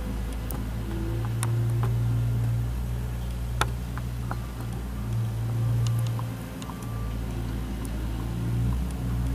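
Mustang 2054 skid steer loader's engine running, its hum swelling and easing a few times as the load changes, with scattered sharp clicks and clanks over it.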